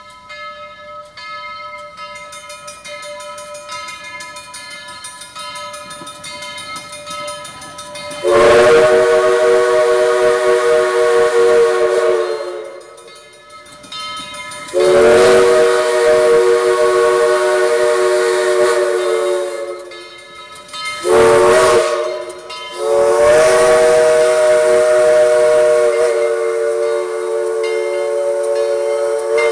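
Grade-crossing signal bell ringing, then Southern Railway 4501, a 2-8-2 steam locomotive, blows its steam whistle in the grade-crossing pattern: two long blasts, a short one and a final long one, each a chord of several notes.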